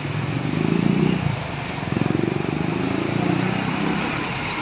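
A road vehicle's engine running close by, swelling twice, over steady traffic noise.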